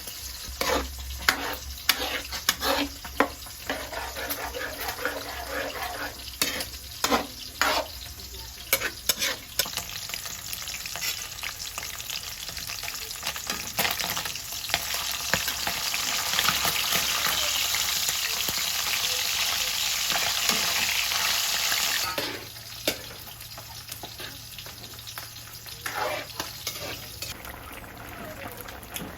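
Food frying in a pan while a utensil knocks and scrapes against it during stirring. About halfway through, the sizzle swells into a loud, steady sizzle, which drops off suddenly about three quarters of the way in, leaving a few more knocks.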